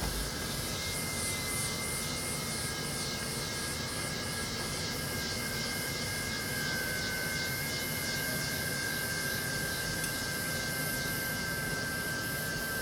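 Iguazu Falls at night: the steady roar of falling water, over which a high, rhythmic chorus pulses about three times a second, with a steady thin high tone running through it.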